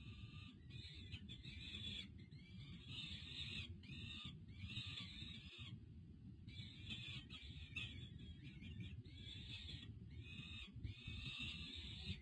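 Juvenile peregrine falcons giving repeated high begging calls while an adult feeds them. The calls come in quick runs with a short pause about six seconds in, over a steady low rumble.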